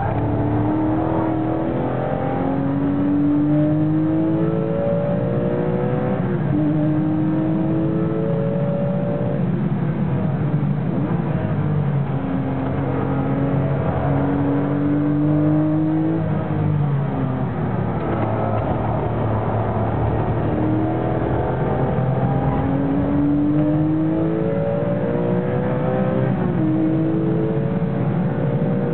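Porsche 996 GT3 RS race car's 3.6-litre flat-six engine heard from inside the cabin, accelerating hard through the gears. The pitch climbs in each gear and drops sharply at each shift, again and again.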